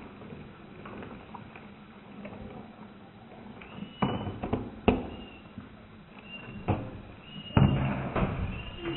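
A golden retriever eating dry kibble from a stainless-steel bowl: chewing and crunching, with a handful of sharp knocks against the metal bowl in the second half, some followed by a short high ring.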